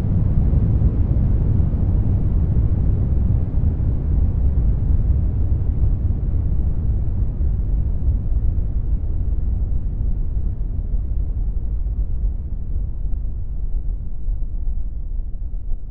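Deep, pitchless rumble added as a sound effect, slowly fading and growing duller.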